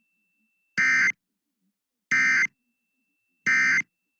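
Emergency Alert System end-of-message data tones: three short, identical bursts of buzzy digital SAME code, about a second and a half apart, which mark the end of the alert.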